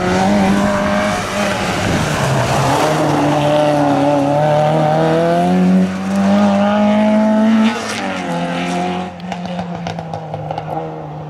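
Rally car engine at high revs through a bend. It eases off briefly about two seconds in, then climbs steadily in pitch as the car accelerates away, drops sharply at a gear change near the end, and grows fainter as the car draws off.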